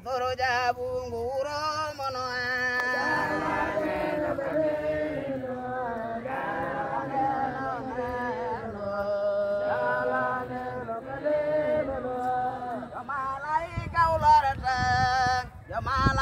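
A crowd of men and women singing a religious chant together, many voices holding and sliding between long notes.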